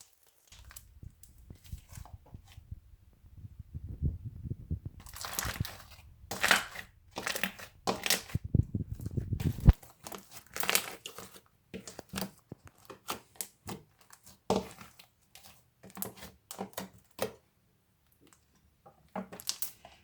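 Slime being pressed by hand, giving irregular sharp crackles and pops, thickest through the middle, over a low rumble that stops about halfway.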